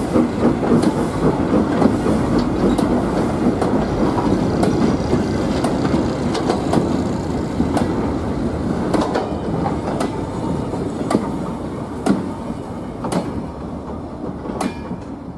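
Goods wagons and a brake van rolling past on old track: a steady rumble with sharp clicks of the wheels over the rail joints, fading as the train moves away.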